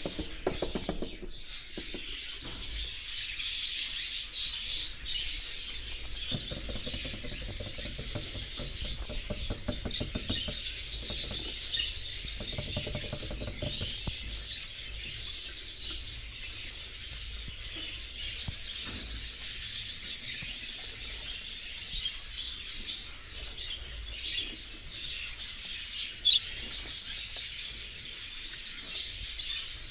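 A group of budgerigars chattering and warbling continuously, many overlapping short high chirps, with one sharp louder chirp near the end.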